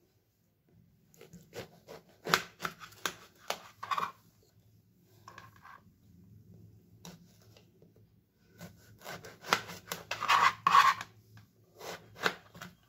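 Kitchen knife sawing and slicing through a brinjal (eggplant) on a plastic cutting board: scraping strokes and blade knocks against the board, in one spell about two to four seconds in and a longer one from about nine seconds.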